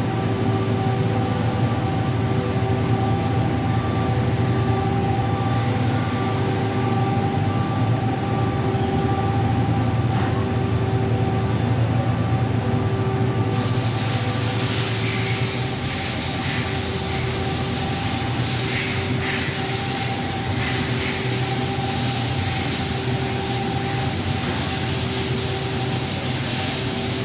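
Mazak Quick Turn Nexus 250-II CNC turning center running under power: a steady machine hum with a whine of several steady tones. About thirteen seconds in, a steady high hiss joins and stays.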